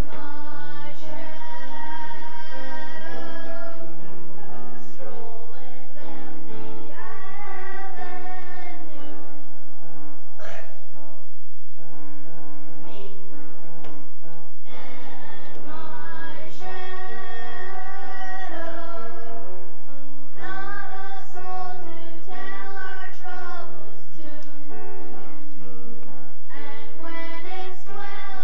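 Music: a song with a voice singing long held notes over instrumental accompaniment.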